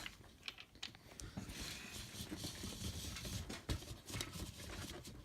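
A tripod being handled: scattered light clicks and knocks with soft rustling as its parts are moved.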